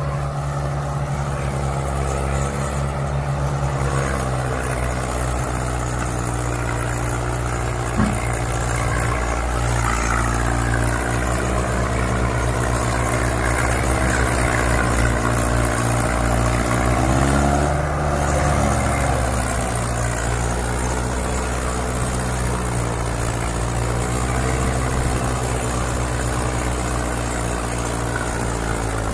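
An engine running steadily, its pitch drifting slowly up and down, with a single short knock about eight seconds in.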